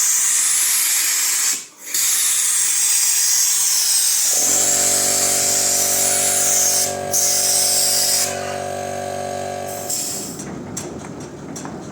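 Pressurised sprayer hissing steadily as used transmission oil is sprayed over farm machinery, cutting out briefly twice. About four seconds in a steady mechanical hum of fixed pitch joins and runs until near the end, when the hiss has stopped and a few faint clicks remain.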